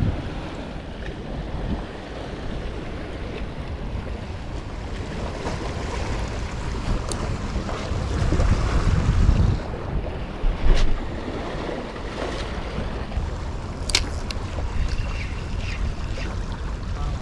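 Wind buffeting the microphone over small sea waves washing against shoreline rocks, with a stronger gust about halfway through. A few sharp clicks stand out above it.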